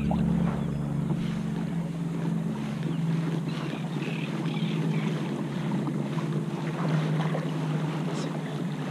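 Water washing along a pedal-driven Hobie Mirage Passport 10.5 kayak as it moves across choppy bay water, with wind on the microphone and a steady low hum underneath.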